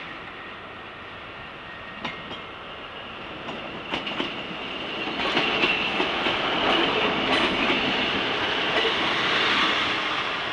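A Class 150 Sprinter diesel multiple unit draws in close past the listener, growing louder from about four seconds in. Its wheels click over the rail joints, and a high squeal rides over the rumble of the passing train.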